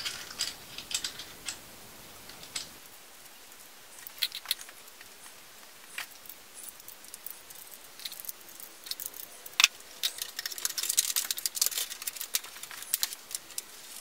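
Scattered small metal clicks and rattles as a graphics card's low-profile metal bracket is handled and fitted into a desktop case, with a denser run of clicks about ten seconds in.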